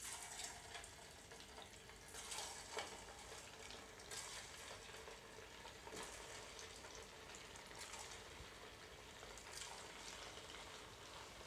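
Leftover-rice pakoda pieces deep-frying in hot oil: a steady, fairly faint sizzle with scattered sharp crackles and pops.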